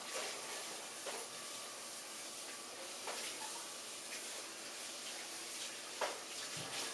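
Yellow Labrador retriever sniffing the air: a few short sniffs, spaced a second or more apart, over a steady low hiss.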